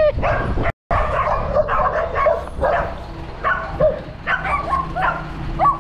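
A dog barking and yipping repeatedly in short, high barks. The audio drops out completely for a moment just under a second in.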